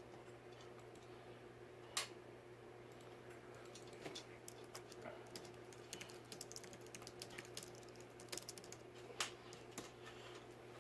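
Faint, irregular small clicks and taps of hardware being handled while a ceiling fan is assembled and mounted. One sharper click comes about two seconds in, and quicker clusters of ticks follow over the second half, above a steady low hum.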